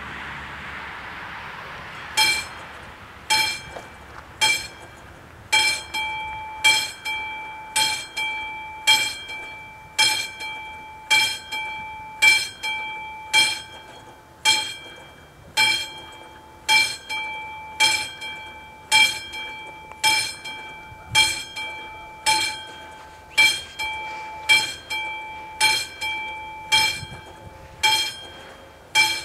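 Level crossing warning bells of an AŽD 71 crossing start striking about two seconds in and keep ringing at about one stroke a second, each stroke a clear metallic ring. They signal that the crossing has activated for an approaching train.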